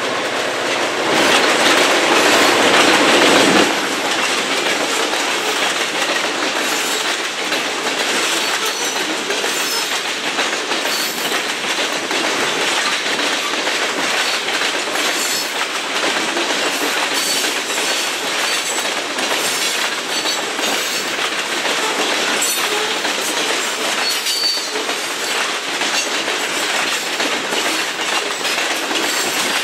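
Loaded covered grain hopper cars of a freight train rolling past at steady speed: a continuous rumble and rattle of steel wheels on rail, with faint clicks over the rail joints. The sound is louder for a few seconds near the start.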